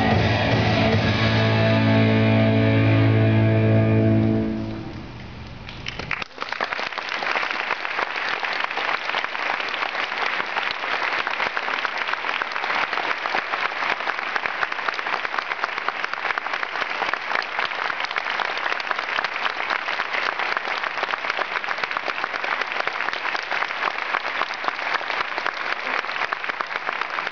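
Music with held notes fading out about four to five seconds in, then a large audience applauding steadily for the rest of the time.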